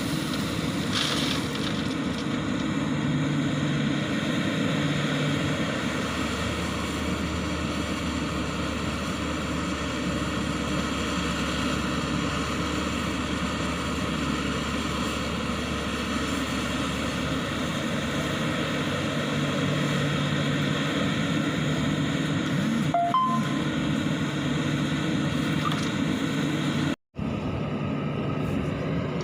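Hyundai 140W wheeled excavator's diesel engine running steadily while loading gravel. The engine note rises and falls slightly, and the sound drops out for an instant near the end.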